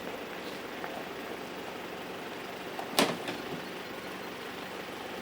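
4WD ute engine running steadily at low revs, with a single sharp knock about three seconds in.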